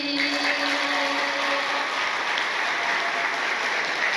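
An audience clapping and applauding steadily.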